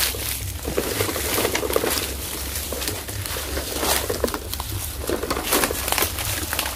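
Dry leaf litter crackling and rustling in many small clicks, over a low steady rumble.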